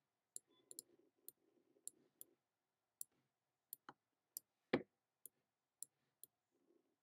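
Faint computer mouse clicking: about a dozen short, sharp clicks at an irregular pace, one of them louder a little before the five-second mark.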